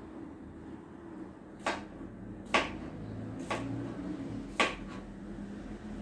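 Kitchen knife chopping raw pumpkin into small cubes on a cutting board: four separate sharp knocks, each blade stroke hitting the board about a second apart.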